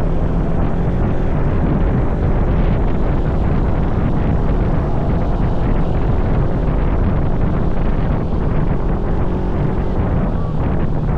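Vehicle engine running steadily under wind noise on the microphone.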